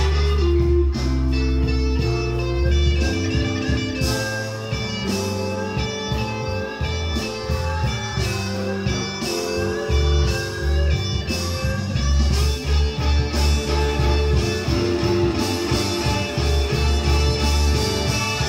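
Blues recording playing on a hi-fi system driven by a Yamaha M-80 power amplifier: bending guitar lines over a steady bass line.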